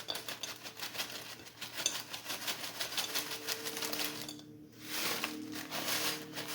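Frozen berries rattling and clicking into a dish as they are poured in, a rapid run of small hard ticks that stops briefly about two thirds of the way through, then picks up again.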